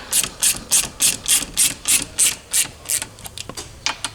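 Hand ratchet being swung back and forth to run in bumper mounting bolts, each return stroke giving a rasping buzz of pawl clicks about three times a second; near the end it slows to a few lighter clicks.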